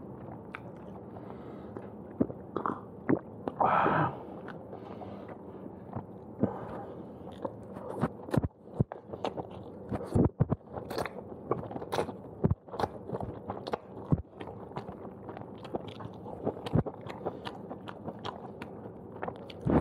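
Close-miked eating sounds: slurping and chewing thick fried udon noodles, with many sharp wet smacks and clicks from about eight seconds on.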